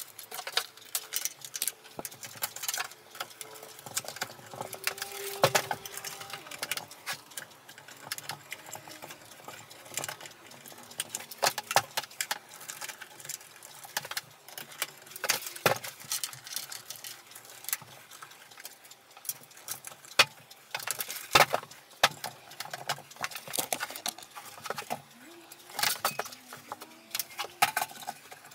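Hands working inside an open desktop PC case, handling cables and parts: irregular clicks, taps and light rattles of plastic and metal.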